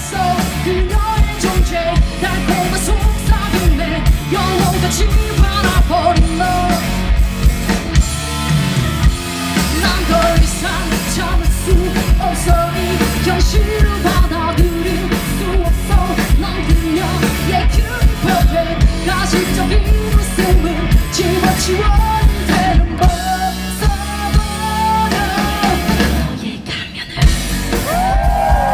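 Live rock band playing through a festival PA: a woman singing lead over drum kit, electric guitar and bass. The music thins out briefly near the end, then comes back in.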